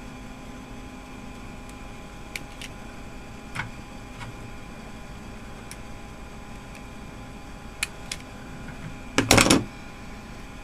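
Light clicks and taps of a plastic PC cooling fan and its wires being handled, then a short loud clatter about nine seconds in as the fan is set down on the steel computer case, over a steady background hum.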